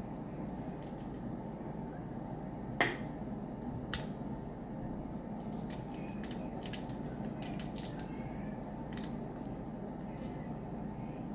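Steamed crab and crawfish shells cracking and snapping as they are broken apart by hand, with two sharper cracks a few seconds in and a run of smaller clicks later. A steady low hum sits underneath.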